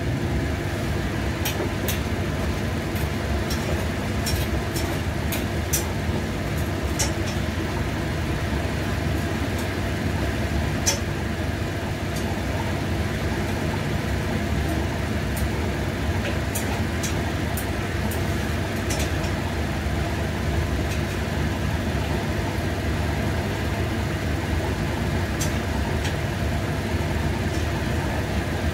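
Steady mechanical drone, with scattered light clicks of chopsticks tapping a metal frying pan as beef is stirred in it.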